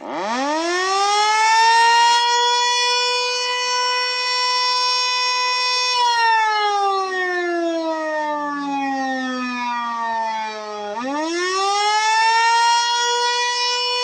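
Darley Champion outdoor warning siren starting up: its tone climbs quickly to a steady high pitch and holds for about four seconds. It then slowly falls in pitch, and about eleven seconds in climbs quickly back up to full pitch.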